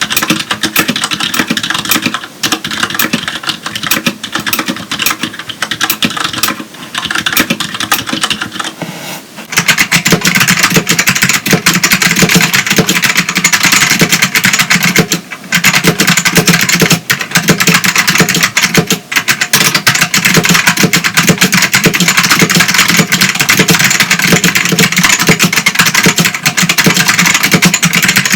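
Continuous typing on a Filco Majestouch Tenkeyless with linear Cherry MX Red switches, then, about ten seconds in, louder and denser typing on a Ducky DK1087-N with clicky green Alps (Ducky XM) switches.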